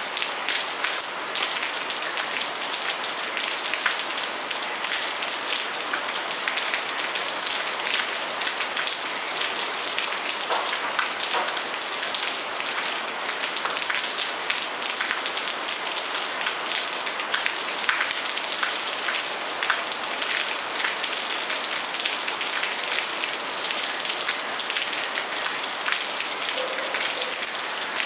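Steady rain falling on a garden and a wet patio deck, a dense even patter of individual drops.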